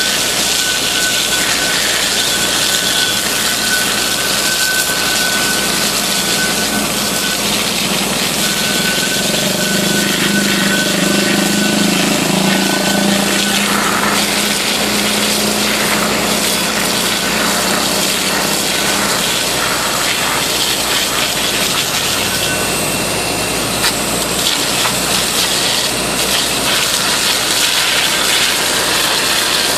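High-pressure water jet spraying onto high-voltage transmission-line insulators, a loud steady hissing rush, during insulator washing. A thin steady whine runs through the first half, and a low hum comes in around the middle and fades after.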